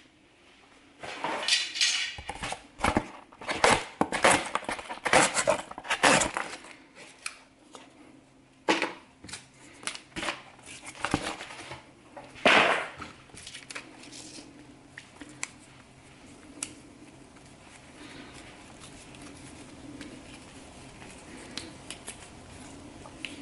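A run of sharp clinks, knocks and clatter as metal things are handled and set down on a workbench, the loudest knock about twelve seconds in. After that only a few faint ticks over a low steady hum.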